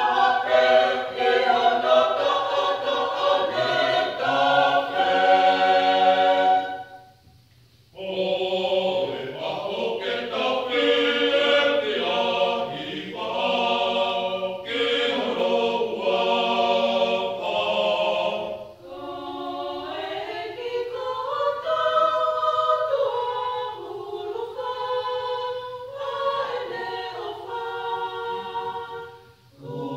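Tongan church choir of mixed men's and women's voices singing a gospel hymn in parts, unaccompanied. The singing breaks off for about a second after seven seconds, comes back fuller and louder, and turns softer for the last third.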